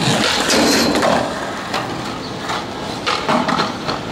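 Skateboard grinding along a concrete curb ledge, a scraping hiss loudest in the first second, then its wheels rolling over asphalt with a few sharp clacks about three seconds in.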